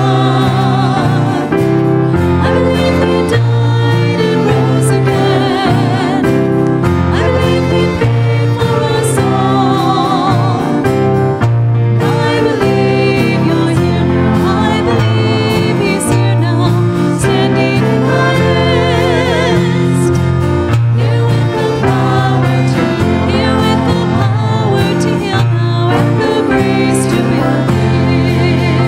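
Two women singing a worship song into microphones, with two violins playing along over held low accompaniment notes.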